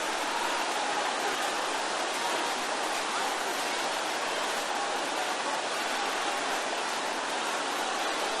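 A large congregation praying aloud all at once, many voices blending into a steady, even roar with no single voice standing out.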